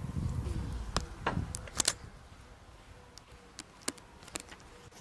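Plastic 3x3 speed cube (a Yulong) being handled and turned, giving a scatter of short sharp clicks, a quick cluster near the second second and a few more spaced ones later. Air buffets the microphone with a low rumble in the first two seconds.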